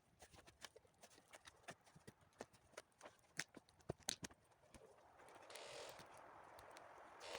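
Campfire of dry branches crackling, with faint irregular snaps and pops; from about two-thirds of the way through, a steady rushing hiss joins the snaps.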